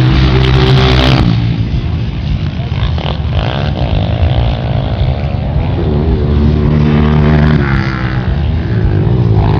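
Honda CRF230 dirt bike's four-stroke single engine under hard riding, its revs rising and falling repeatedly as the throttle is worked and gears change.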